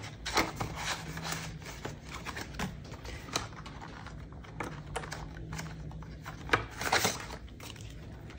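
Paper banknotes being handled: bills slid out of a plastic sleeve in a cash binder and shuffled, giving irregular crisp rustles and light clicks, over a faint steady hum.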